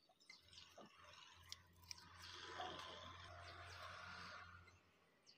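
Near silence: faint background noise, a low hum and a soft hiss that swell for a few seconds in the middle, with a few faint clicks.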